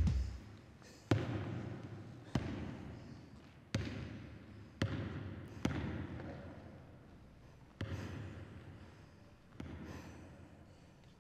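A basketball bouncing on a hardwood gym floor, seven slow, uneven bounces, each echoing through the large hall.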